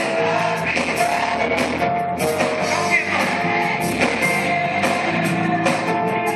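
Large choir singing with live band accompaniment and a steady drum beat, recorded on a phone in a hall.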